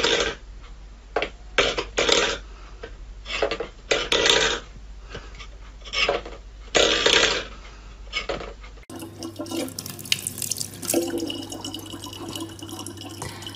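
A stainless steel bowl pushed by a cat's paw across a wooden floor, giving repeated short scrapes about once a second. After a cut about two-thirds of the way through, a thin stream of water runs from a tap into a plastic bottle over a steady low hum.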